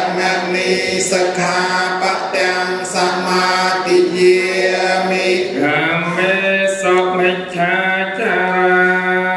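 Group of voices chanting a Buddhist prayer in unison, a steady recitation on long held notes that shifts pitch about six seconds in.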